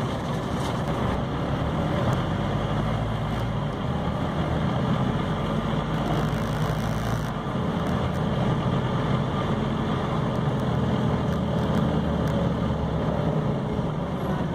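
Scania OmniCity city bus heard from inside while under way: the diesel engine's steady low rumble mixed with road noise, with a brief hiss about six seconds in.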